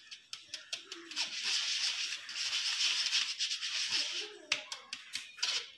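Plastic spoon rubbing flour and cocoa powder through a mesh sieve: a dry, scratchy rasp in quick repeated strokes that eases off about four seconds in.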